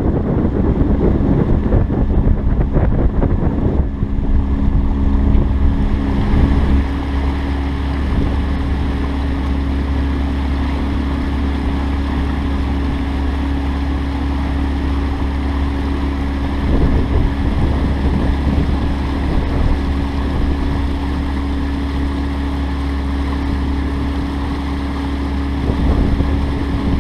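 Sailing catamaran's motor running hard under way, a steady drone with a low hum and a fixed tone above it. Wind on the microphone adds a rushing noise in the first few seconds.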